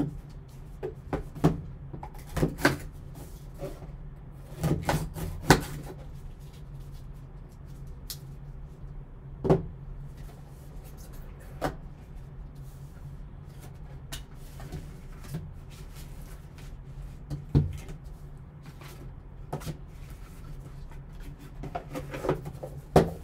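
Gloved hands handling a cardboard trading-card box as its lid comes off and the inner box is lifted out: scattered soft knocks, taps and rubbing, over a steady low hum.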